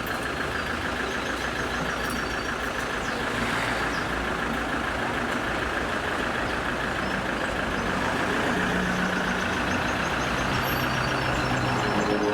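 Steady motor-vehicle engine and traffic noise. A deeper engine note comes in about seven seconds in, and the sound grows slightly louder.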